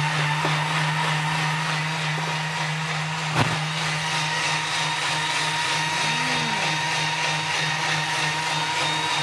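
Thermomix food processor blending a smoothie at speed 10, its motor running loudly and steadily at one pitch. A single sharp click comes about three and a half seconds in.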